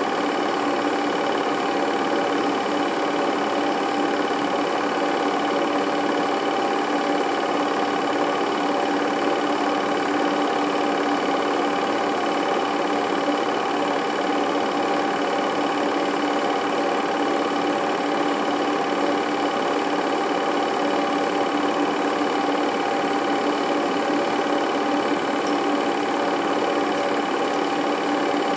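Film projector running: a steady mechanical whirr with an even hum, unchanging throughout.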